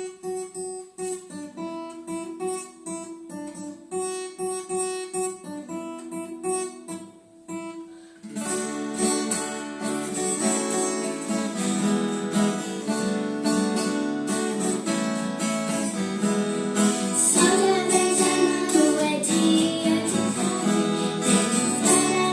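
Acoustic guitar (violão) instrumental intro: single picked notes in a repeating pattern, then about eight seconds in the playing turns fuller and louder with strummed chords.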